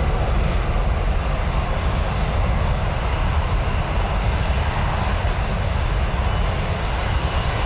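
Boeing 747 jet engines at takeoff power as the airliner rolls and lifts off: a steady, loud rumble with a heavy low end.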